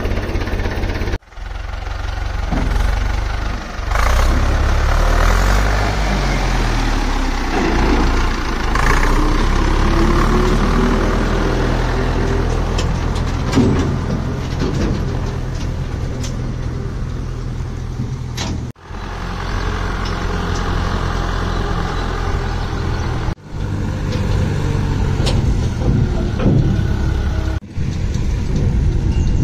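Hindustan 80 tractor's diesel engine running, speeding up and slowing so that its pitch rises and falls, with a few abrupt breaks.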